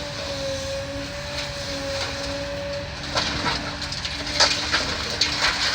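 Demolition excavator running with a steady engine and hydraulic whine, with debris from the school roof cracking and crunching several times in the second half.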